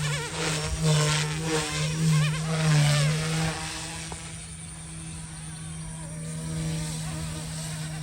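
Goosky S2 Legend RC helicopter, dual brushless direct-drive, in flight: a steady buzzing hum from its motors and rotors. Over the first three and a half seconds a whine wavers up and down and the sound is loudest, then it settles to a steadier, quieter hum.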